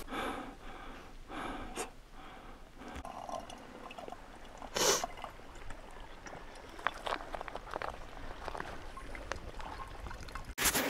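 Water trickling and dripping from a squeeze filter into a plastic bottle, with scattered small drips and a short loud hiss about five seconds in.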